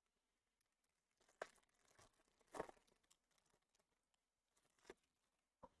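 A handful of short, faint rustles of baseball cards and pack wrappers being handled, the loudest about two and a half seconds in.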